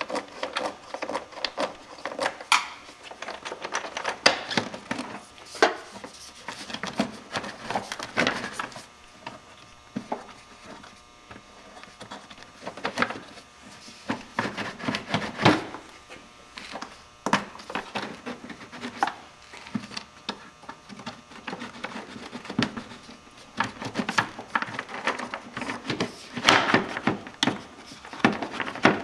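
Irregular clicks, knocks and rattles of a hand wrench and plastic air-intake parts while the bolts of a truck's air cleaner assembly are loosened and the intake tube is handled.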